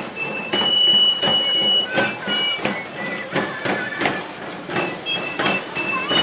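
Provençal galoubet pipes playing a high, shrill melody in held notes over tambourin drums beaten about twice a second: a marching galoubet-tambourin band.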